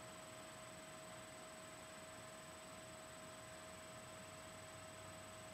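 Near silence: room tone, a steady hiss with a faint constant hum.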